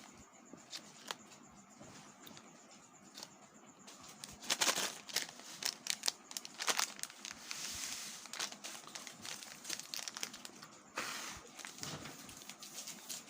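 Plastic chocolate and candy wrappers crinkling and rustling as they are handled, with irregular small clicks and crackles and a few louder crinkly stretches.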